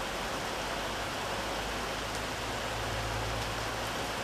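Heavy rain pouring onto concrete and standing water, a steady even hiss.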